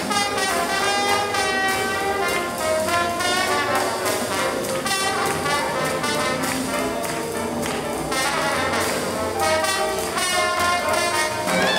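Live swing jazz band playing, with brass horns leading the tune.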